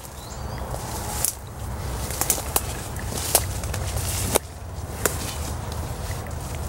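A hiker's footsteps pushing through dense woodland undergrowth: irregular snaps and swishes of twigs and leaves, over a steady low rumble on the microphone.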